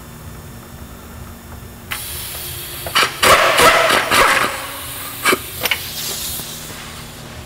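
Cordless driver with a socket on an extension running in several short bursts, the loudest cluster near the middle, backing out the bolts that hold a clutch slave cylinder to the transmission.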